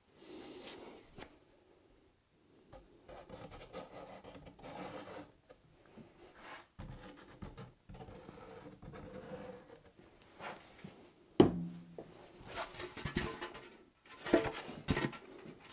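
Handling of polystyrene beehive box parts and a plastic wood-glue bottle: intermittent rubbing and scraping, with a sharp knock about eleven seconds in and a cluster of scrapes and knocks near the end as the last side panel is picked up.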